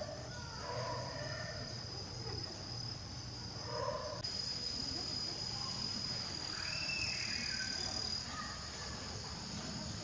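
Steady, high-pitched chirring of insects, which shifts slightly about four seconds in. A few faint, brief calls sit underneath it, one falling in pitch a little after the middle.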